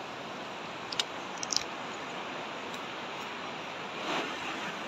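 Steady rushing of a shallow, rocky mountain river, with a few sharp clicks about a second and a second and a half in.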